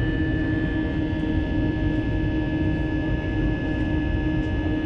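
Airliner turbofan engines at climb power after takeoff, heard inside the passenger cabin over the wing: a steady low rumble with a constant hum and a thin high whine.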